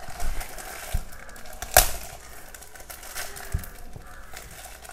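Clear plastic packet rustling and crinkling as it is opened by hand to pull out a paper card, with a few sharp clicks and taps, the loudest about two seconds in.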